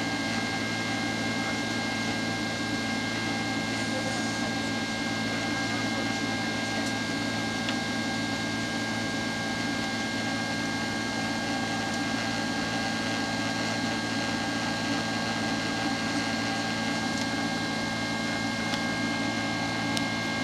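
Steady in-flight cabin noise of a Boeing 767-300ER after takeoff: the jet engines' even drone and rushing air, with a couple of steady high whining tones running through it.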